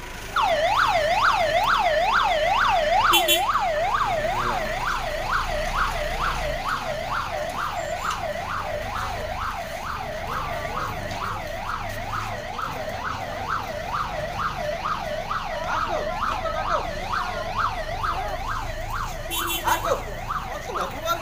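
Hearse van's siren switches on about half a second in. It wails in a fast repeating swoop, about two falls and rises a second, and gets slightly quieter as it goes on.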